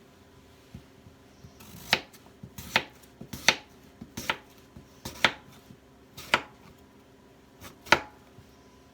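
Kitchen knife chopping on a cutting board: about seven sharp, separate strokes, roughly one a second and unevenly spaced, starting about two seconds in.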